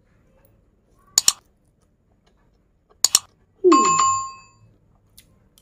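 Subscribe-button overlay sound effect: a sharp double mouse-click, another double click about two seconds later, then a bell ding with a falling swoop under it that rings for about a second.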